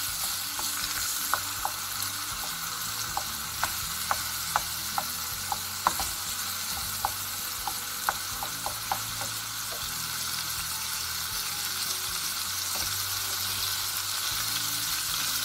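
Cubed pork, garlic and onions sizzling in oil in a frying pan as they sauté, stirred with a wooden spoon. A steady hiss, with scattered short sharp ticks over roughly the first ten seconds.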